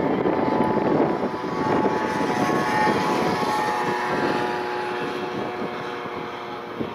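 Distant fireworks display: aerial shell bursts and crackles overlapping into a continuous rolling rumble. Some steady whistling tones come in about two seconds in, and the din eases off a little toward the end.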